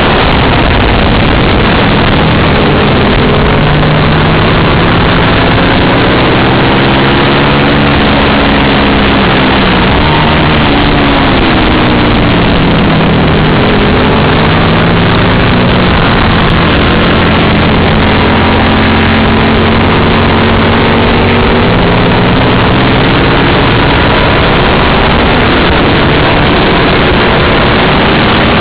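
Lightweight racing motorcycle engine at full race pace, its pitch climbing and dropping again and again as it accelerates down the straights and slows for corners, under a heavy rush of wind noise. The sound is loud and continuous.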